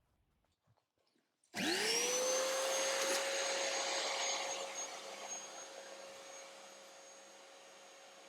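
A Ryobi wet and dry vacuum cleaner switched on about a second and a half in: its motor whine rises quickly to a steady pitch over a rushing hiss, then keeps running, getting gradually quieter over the next few seconds.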